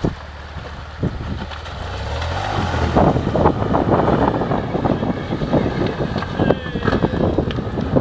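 BMW R1150GS boxer-twin motorcycle engine revving up as the bike rides into a river, then water splashing and churning around the wheels. Wind buffets the microphone throughout.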